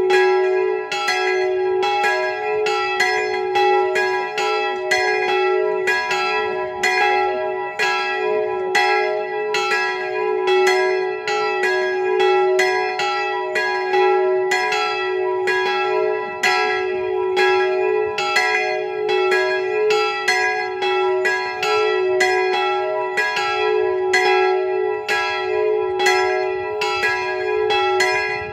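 Three swinging bronze church bells, which the uploader takes for Jan Felczyński castings (two of them tuned to e'' and g#''), ringing together. Their clappers strike in a fast, overlapping, unbroken peal with the bell tones ringing on between strikes, and the smallest bell's clapper strikes twice per swing.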